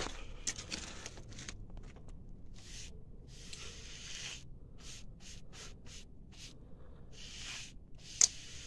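Flat paintbrush stroked over a rough wall, its bristles scraping in a run of short strokes, with scattered light taps and one sharp click near the end.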